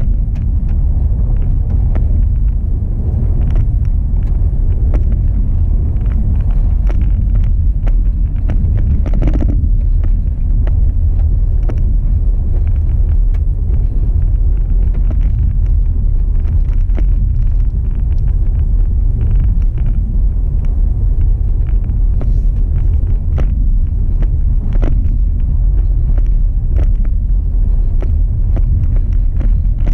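Car driving along a gravel road, heard from inside the cabin: a steady low rumble of tyres and engine, with scattered small ticks and knocks throughout.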